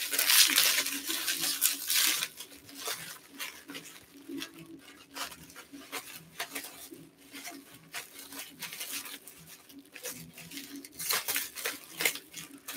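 Paper packaging being cut with scissors and torn open, rustling and crinkling in uneven bursts. It is loudest in the first two seconds and again about eleven seconds in.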